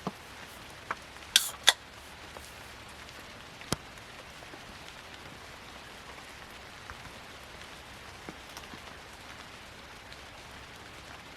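Steady rain falling, an even patter throughout. A few sharp knocks sound in the first four seconds, the loudest two close together about a second and a half in.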